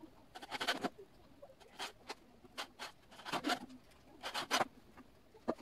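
Light scratching and tapping in irregular short bursts, about six groups of quick clicks.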